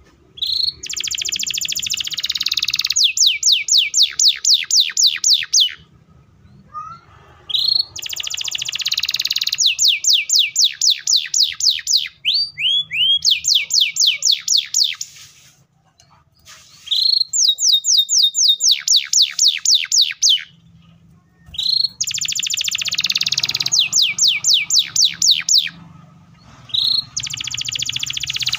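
Domestic canary singing in repeated bouts, each a buzzy trill followed by a fast, tight roll of repeated sweeping notes at about five a second, with short pauses between bouts.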